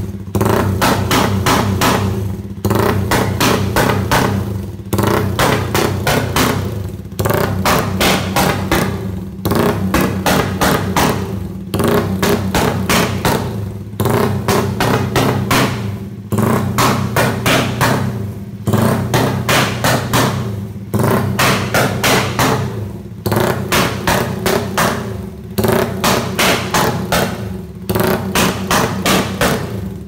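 Modified Suzuki motorcycle engine with an open aftermarket exhaust running loud and choppy, revved in repeated surges about every two seconds with a brief dip between each. The engine pops and backfires: the owner says it is still untuned.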